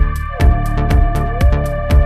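Background electronic music with a steady beat of about two kicks a second, hi-hat ticks, and held synth tones that glide up and down in pitch.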